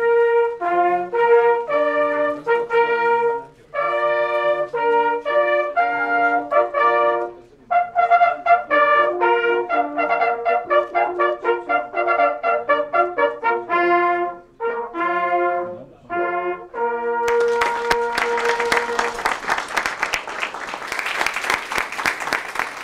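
Brass horns playing a tune in several parts at once, in short repeated notes and phrases. About 17 seconds in, applause breaks out over the held final note and carries on.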